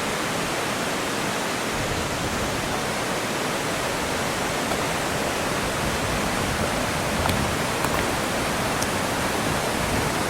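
Steady rushing of flowing water, with a few faint clicks about seven to nine seconds in.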